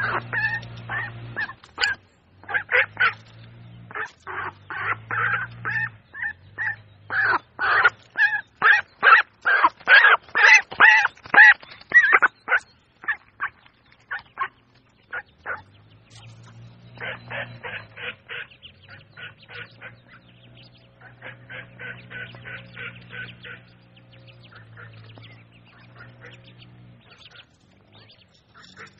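Ducks quacking in rapid runs of calls, loudest and densest in the first half, then softer and more scattered, over a low steady hum.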